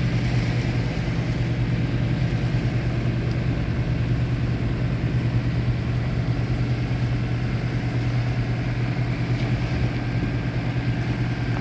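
The Najad 360 sailboat's inboard diesel engine running steadily as the boat motors under way, a constant low drone.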